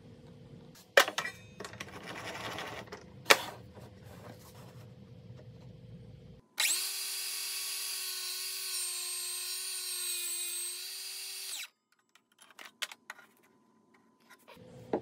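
Table saw running for about five seconds with a steady high-pitched motor whine, starting and stopping abruptly. Before it come two sharp knocks with a short scratchy stretch between them, from hand work with a pencil and marking gauge on the wooden block.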